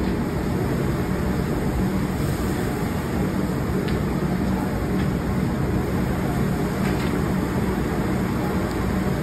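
Steady rushing noise with a constant low hum at a Mongolian barbecue grill station, as from the griddle's burner and ventilation, with a few faint clicks as the cook works food across the round iron griddle with long sticks.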